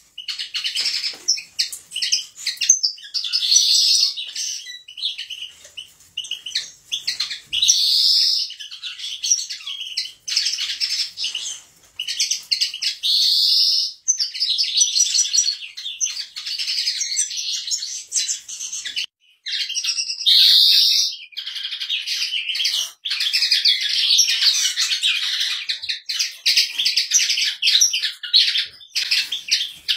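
Caged European goldfinches singing: fast, continuous high twittering and chirping, with a few louder rising notes now and then.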